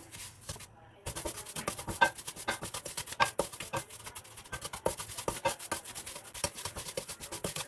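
Wooden spatula stirring and scraping semolina as it roasts on a low flame in a steel pan: a quick, irregular run of gritty scrapes and taps that starts about a second in.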